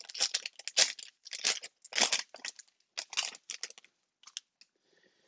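Foil wrapper of a trading card pack being torn open and crinkled, in a quick run of crackling tears that thins out after about four seconds.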